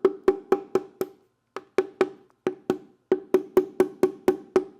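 Socket ratchet wrench clicking in steady strokes, about four clicks a second, with two short pauses as the wrench is repositioned.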